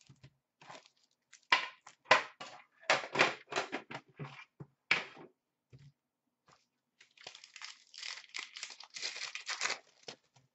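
Hockey card box and pack wrappers being handled and torn open: irregular rustles and tearing in the first half, then a longer stretch of crinkling near the end.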